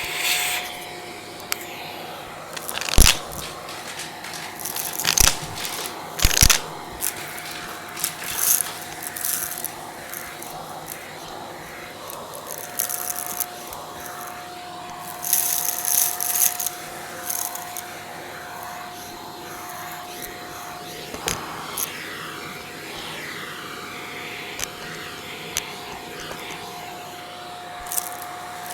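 Vacuum cleaner running with a steady whine while its brush tool works the stairs. Debris rattles and crunches up the hose, with irregular sharp clicks and knocks as the tool strikes the steps, and a burst of crackling near the middle.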